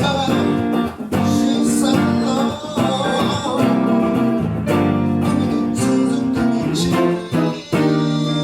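Live band playing a song, with guitar prominent.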